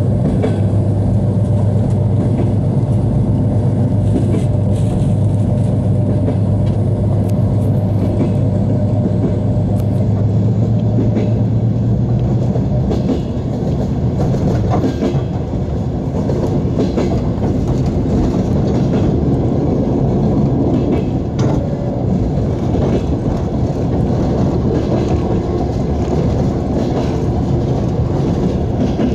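Passenger train running on rails, heard from inside the carriage: a steady rumble with scattered wheel clicks over rail joints. A low hum under it fades out about twelve seconds in.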